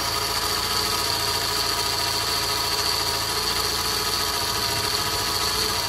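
Fiat Abarth 500's turbocharged four-cylinder engine idling with its old auxiliary belt and tensioner, a steady high-pitched whine riding over the running engine. The owner puts the whine down to the worn belt and tensioner.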